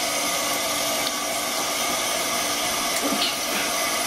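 Kitchen tap running cold water steadily into a stainless steel sink, an even hiss that holds at one level throughout.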